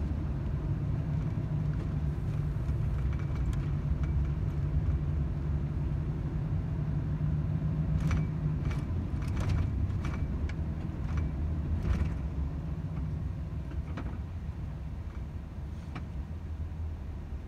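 Volvo FH 500 truck driving: a steady low engine and road rumble whose engine note fades about halfway through, followed by a scatter of short, sharp clicks and knocks.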